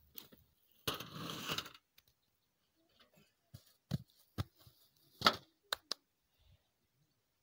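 A brief rustling scrape about a second in, then a handful of sharp clicks and knocks spread over the next few seconds, the loudest about five seconds in.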